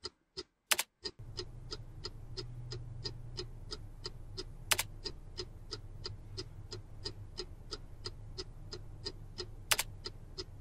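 Regular ticking, about three ticks a second, over a low steady hum that comes in about a second in. A louder, sharper click lands every five seconds or so.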